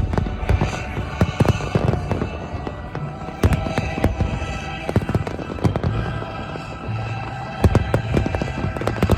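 Fireworks bursting in a rapid, irregular series of loud bangs, with music playing underneath.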